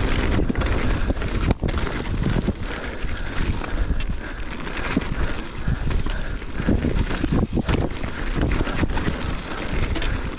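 Mountain bike being ridden over a rocky dirt trail: steady wind buffeting the camera microphone, with the crunch of tyres on gravel and many quick rattles and knocks as the bike goes over rocks.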